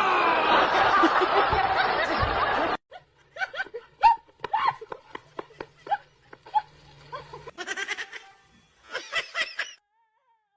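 Laughter in short, rapid bursts, following a loud, dense noisy sound that cuts off abruptly about three seconds in.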